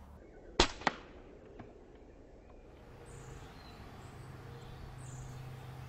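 A sharp crack about half a second in, followed by a fainter knock, then outdoor garden ambience with birds chirping faintly over a low steady hum.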